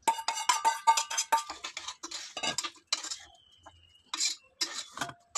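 Stainless steel vessels and utensils clinking and clattering against one another: a quick run of ringing clinks in the first second and a half, then scattered knocks.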